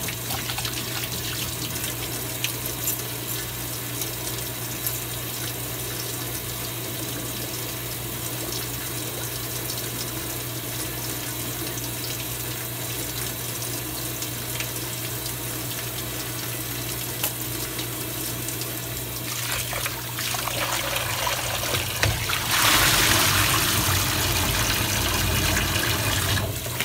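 Kitchen tap running into a stainless steel sink while a pork ham is rinsed in a plastic tub of water, with a steady low hum underneath. About 22 seconds in, the water gets louder for about four seconds as a fuller stream splashes into the sink.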